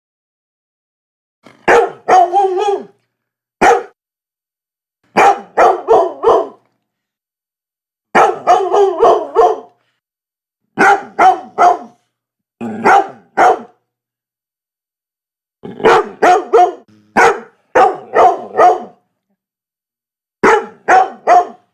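A dog barking in bouts of one to five quick, loud barks, with a second or so of silence between bouts.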